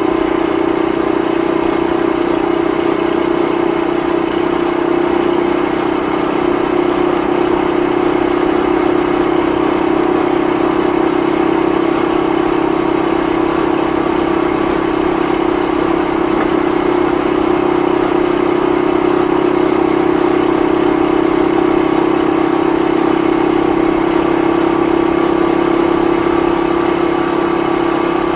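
Honda Super Cub 50 (AA01, carburetted) 49 cc air-cooled four-stroke single-cylinder engine and exhaust running at an even pitch while the bike cruises at a steady speed.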